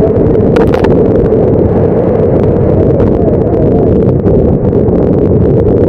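Storm wind buffeting the microphone and heavy seas breaking over a fishing boat's open deck: a loud, steady rush, with a sharper splash under a second in.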